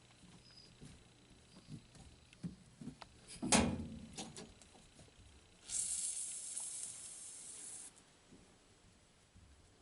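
Handling knocks on a washing-machine supply valve, then a hiss of water rushing through the valve for about two seconds as it is opened, cutting off suddenly.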